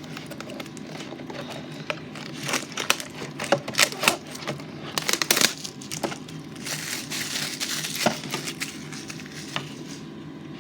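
Plastic wrapper of a basketball card pack crinkling and crackling as it is handled and opened, in sharp clusters with a longer rustle near the middle.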